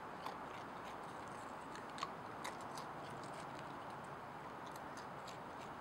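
A raccoon crunching chips: small, irregular crisp clicks, the sharpest about two seconds in, over a steady hiss.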